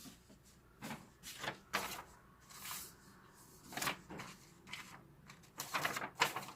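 Scattered light clicks and knocks at irregular intervals, with a closer cluster near the end.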